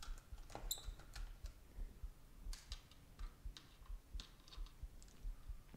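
Light, irregular clicks and taps of a screwdriver working the small screws on a Sirius XM satellite radio's circuit board.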